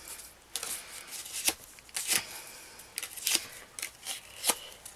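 Red paper tabs rustling and scraping as they are curled over a bone folder, with several sharp clicks of paper handling.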